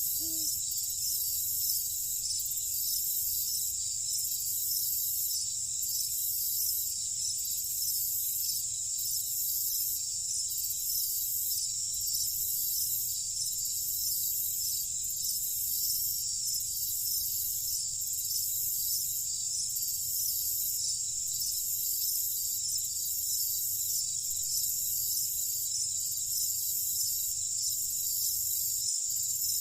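Night insect chorus of crickets: a steady, high-pitched trilling with a faster pulsing layer on top that beats about once a second, over a low steady background rumble.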